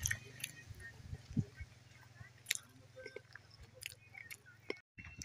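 Footsteps crunching on gravelly dirt, a scatter of short clicks, over a low steady hum that fades out about two seconds in.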